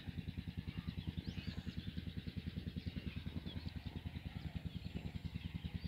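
Belarus 510 tractor's diesel engine running steadily with a fast, even beat, with faint high chirps over it.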